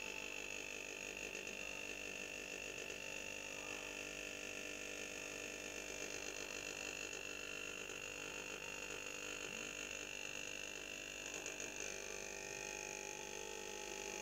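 A steady electrical hum with a high, even whine, unchanging throughout.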